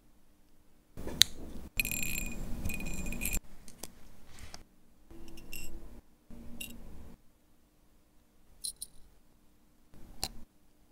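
Tweezers and small metal parts of a vintage Longines automatic watch movement clicking and clinking as it is taken apart. A sharp click about a second in is followed by a metallic rattle with ringing for about a second and a half, then scattered light clicks, a short metallic ping near the end and one more click.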